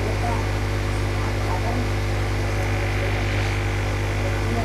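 Steady electrical mains hum, a low buzz with evenly spaced overtones over a faint hiss, unchanging in level.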